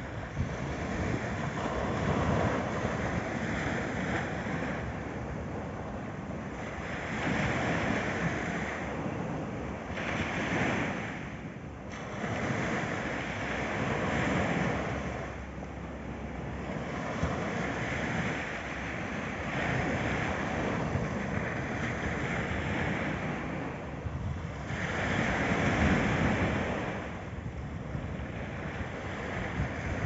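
Small sea waves breaking and washing up onto a sandy beach. The surf swells and falls back every few seconds, with louder surges now and then.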